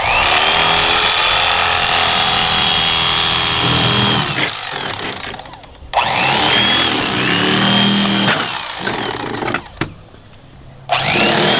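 Electric fillet knife running in bursts as it cuts a catfish fillet. Its motor whine rises as it spins up, holds steady, then cuts off, starting again about 6 s in and once more near the end.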